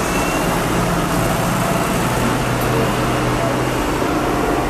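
Tractor engine running steadily as the tractor drives past: a low, even hum under a steady wash of noise.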